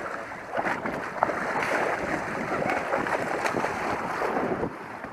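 Hooked blue shark thrashing at the surface beside the boat, water splashing and churning, dying down near the end, with wind on the microphone.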